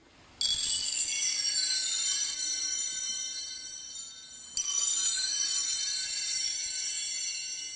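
Two swells of high, glittering chimes, one about half a second in and one about four and a half seconds in, each ringing out and slowly fading.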